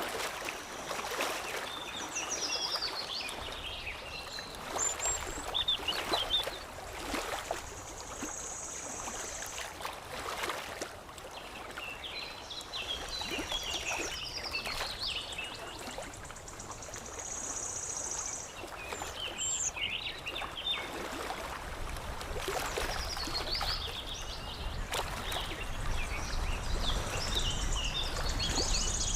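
Water lapping and trickling with small splashes, under songbirds singing in clusters of quick chirps every few seconds. A high, steady trill comes three times, and a low rumble builds near the end.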